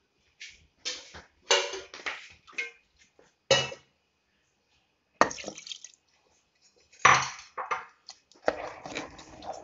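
Metal ladle stirring mushy cooked rice and dal in an aluminium pressure cooker: wet, sloppy stirring with the ladle scraping and clinking against the pot in irregular strokes.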